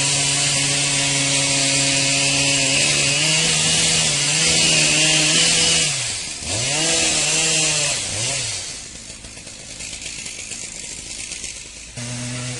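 Two-stroke chainsaw running at high speed for about six seconds, then revving down and back up a couple of times before it drops away to a quieter, rough noise. A short burst of steady running returns near the end.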